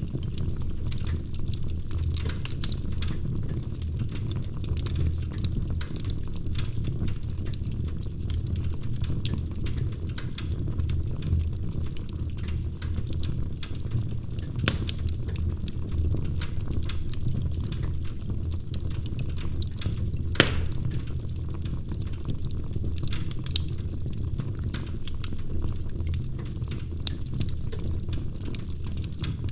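Wood fire burning in a fireplace: steady crackling with scattered sharp pops, the loudest about twenty seconds in, over a low steady rumble.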